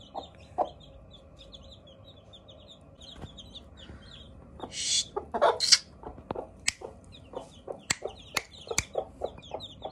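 A brood of newly hatched chicks peeping in many short, high cheeps, with a hen clucking. A few louder calls come about five seconds in, followed by a run of sharp clicks.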